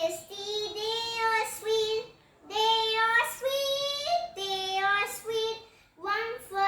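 A young girl singing a fruit rhyme on her own, with no accompaniment, in held, sing-song notes. Her phrases are broken by short pauses for breath about two seconds in and near the end.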